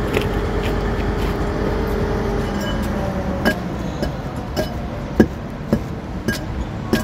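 Kato 25-ton truck crane's diesel engine running steadily, easing off about two and a half seconds in, followed by a series of scattered sharp clicks and knocks.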